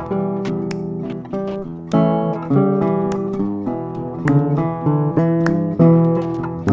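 Instrumental background music: an acoustic guitar picking and strumming a steady run of plucked notes and chords.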